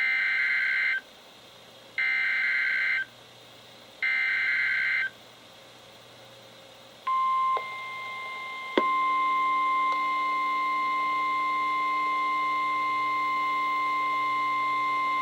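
NOAA Weather Radio alert heard through weather radio receivers. First come three one-second bursts of warbling SAME header data tones, two seconds apart, that encode a new warning, here a special marine warning. A few seconds later the steady 1050 Hz warning alert tone begins and holds for about nine seconds, with a click near the middle after which it sounds louder with a low buzz under it.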